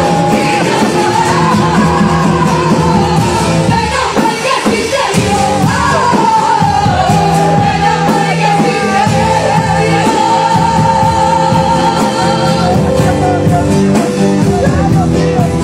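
Live worship music: singers on microphones singing a Spanish-language Christian song over a full band, with long held notes.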